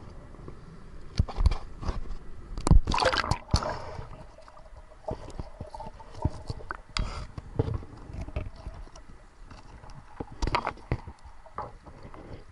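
Water splashing and sloshing as a swimmer goes under the surface, loudest about three seconds in. Then muffled underwater knocks and clicks picked up by a submerged camera, with another cluster of knocks near the end.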